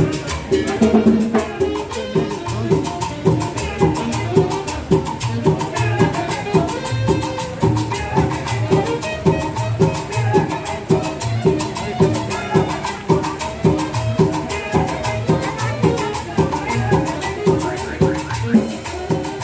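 Latin dance music with a steady, fast beat and shaker percussion.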